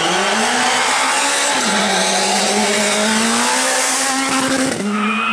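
Rally car engine revving hard through a gravel hairpin. Its note dips and climbs with quick gear changes, then is held high and steady, over a dense hiss of tyres on loose gravel. The sound changes abruptly near the end.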